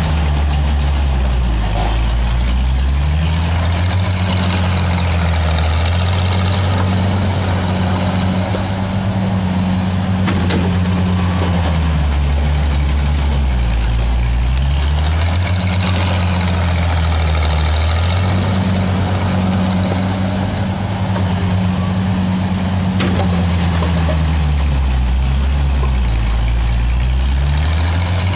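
The engine of a 1961 Bantam T-350 cable excavator runs hard through repeated digging cycles. Its pitch sags each time the bucket is dragged through the dirt and climbs back as the load comes off, three times about twelve seconds apart. A high hiss swells and fades between the dips.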